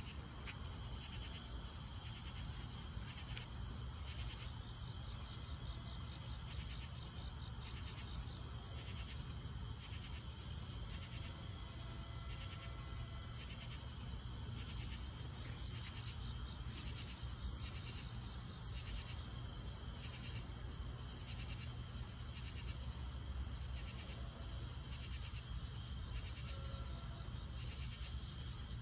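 Night chorus of crickets and other insects: a continuous high trill with a slower, regular pulsing chirp through it. A steady low rumble sits underneath.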